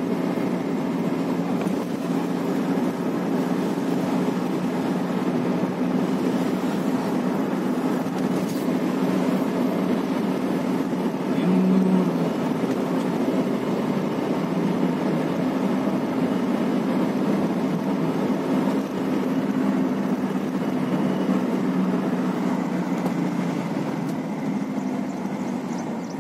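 Steady road and engine noise of a car driving along, heard from inside the cabin, with a brief low tone about halfway through.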